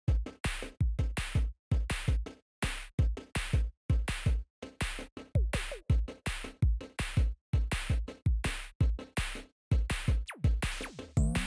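Electronic background music with a heavy drum-machine beat and deep bass-drum hits, starting abruptly out of silence.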